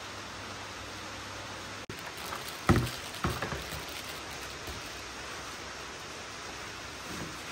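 Small plastic packet crinkling as it is torn and squeezed out over a basin of grain, with one sharp loud rustle about three seconds in and a few smaller ones just after, over a steady hiss.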